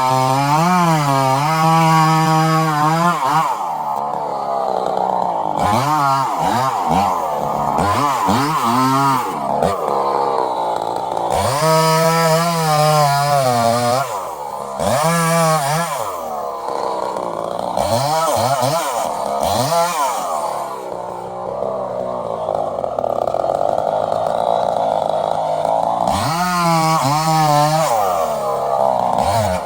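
Gas chainsaw running hard, its engine speed repeatedly swooping up and down as it revs and cuts into wood. Stretches of high, steady revving alternate with rougher, lower-pitched running under load.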